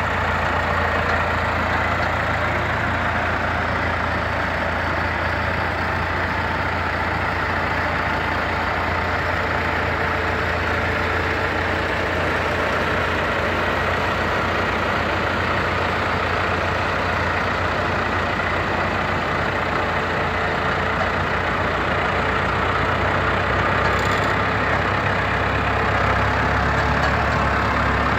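Case IH 885 tractor's diesel engine running steadily at low revs while the tractor drives slowly.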